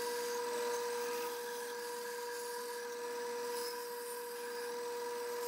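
Bandsaw running with a steady hum while a small piece of wood is fed into its blade and cut, the blade's hiss under the motor tone.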